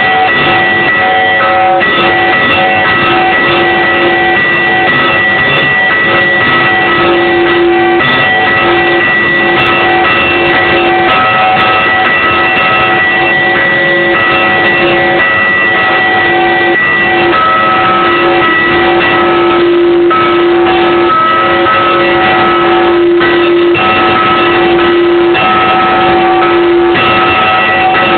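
Church bells ringing on and on, several bell tones of different pitch overlapping and sustaining, with no gap between strokes.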